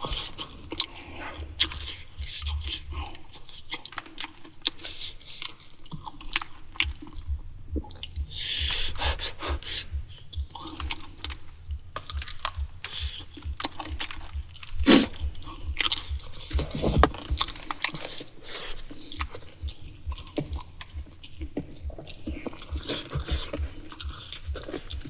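A person chewing food close to the microphone: steady rhythmic chewing with many small wet mouth clicks and crunches. There is a single louder knock about fifteen seconds in.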